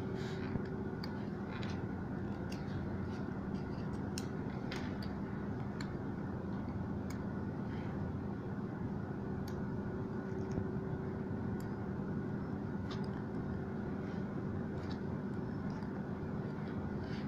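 Steady background hum with a few constant tones, under scattered light clicks and taps as a plastic spudger and fingers work the small flex-cable connectors on a tablet's circuit board.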